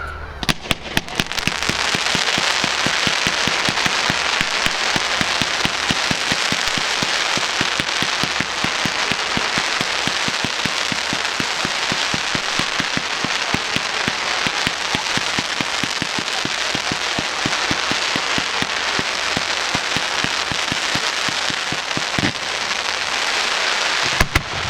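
Fireworks going off in a long, dense barrage of rapid cracks and crackling, starting with a few separate bangs and ending abruptly with a couple of louder bangs just before the end.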